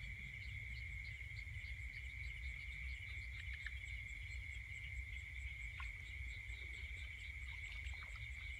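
Night insects calling: a steady, unbroken high trill of crickets, with another insect chirping faster above it at about three chirps a second. A low rumble sits underneath.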